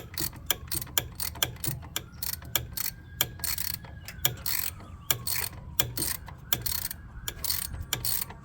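Half-inch ratcheting wrench clicking in quick, uneven strokes, a few a second, as a nut is backed off an alternator terminal post.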